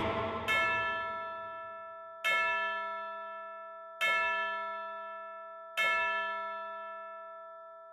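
A bell struck four times, about every second and three-quarters, each strike ringing on and slowly fading.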